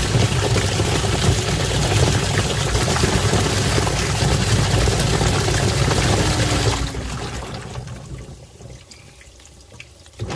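Washing machine churning water in its tub with a low motor hum. About seven seconds in the motor winds down, and the sloshing dies away over the next few seconds.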